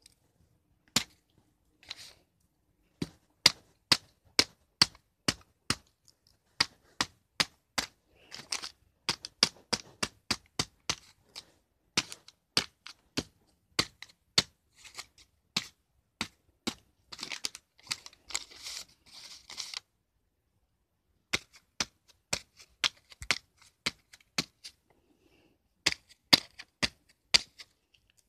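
A pen jabbed over and over into a paper disc, a sharp tap about twice a second, with bursts of paper crinkling between the jabs and a short pause partway through.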